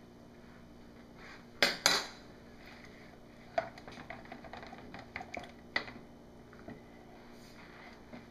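A metal spoon knocking and clinking against plastic measuring jugs while stirring soap batter. Two sharp knocks come about a second and a half in, then a scatter of lighter clinks and taps.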